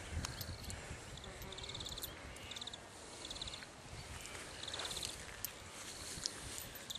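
Insects chirping in short, rapidly pulsed trills that repeat every half second or so, over a low rumble of wind on the microphone, with a few faint clicks.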